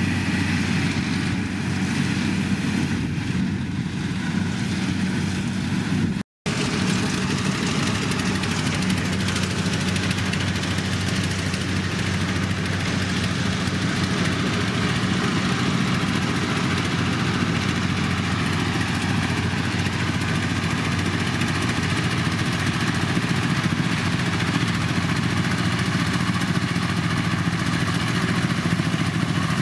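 Kubota DC-105X combine harvester's diesel engine running steadily, with a low, even hum. The sound cuts out for a split second about six seconds in.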